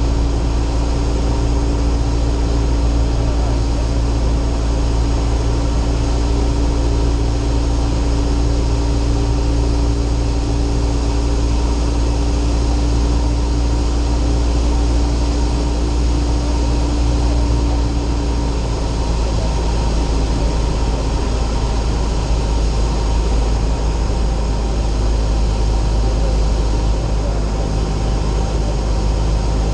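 Steady drone of a light single-engine propeller airplane's engine and propeller, heard from inside the cockpit. One tone in the drone drops out about two-thirds of the way through while the overall noise stays steady.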